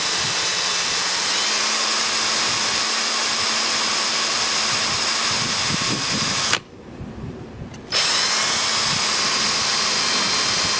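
Power drill with a small 3/32-inch bit drilling out a stuck brass screw in old door lumber; the motor runs steadily, stops for about a second just past the middle, then runs again.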